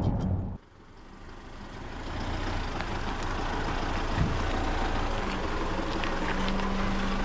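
Background music cuts off about half a second in, then steady vehicle driving noise fades in, an even rush with a low hum.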